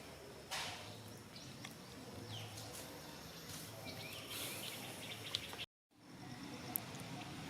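Outdoor ambience: a steady hiss of background noise with a few brief, falling high-pitched chirps scattered through it. The sound drops out completely for a moment just after halfway.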